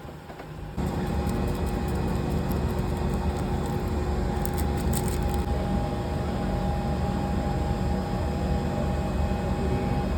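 Electric oven switching on about a second in and running with a steady hum.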